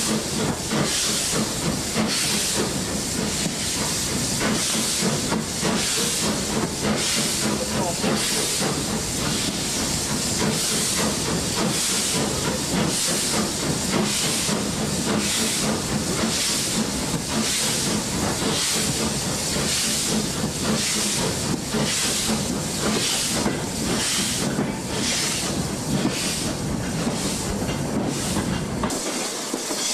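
Exhaust of an LSWR B4 0-4-0 dock tank steam locomotive hauling a loaded rail train: regular chuffs of about one to two a second over a constant steam hiss, echoing in a tunnel. Near the end the low rumble drops away as the train leaves the tunnel.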